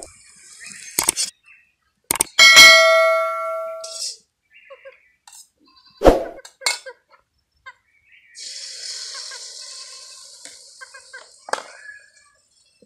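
Metal kitchenware clanging against an iron wok: a few sharp knocks, the loudest about two and a half seconds in ringing on for over a second. Near the end a hiss that slowly fades.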